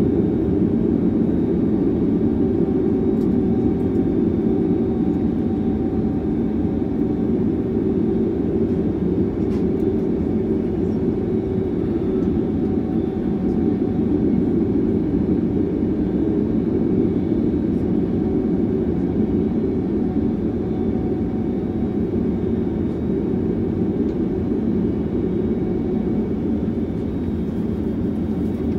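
Jet airliner's engines idling, heard from inside the passenger cabin as a steady low rumble with a faint steady whine above it.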